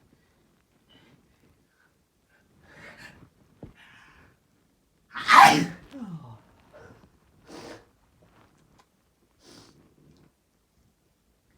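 A person's sneeze: two quick breaths in, then one loud sneeze about five seconds in, its voice falling in pitch at the end. A few short, quieter sounds follow.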